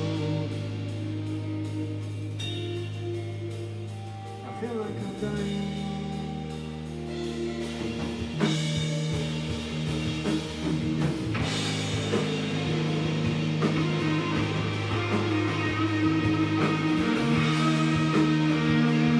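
A live rock band playing, with guitar and a drum kit over long held low notes. The music builds louder through the second half.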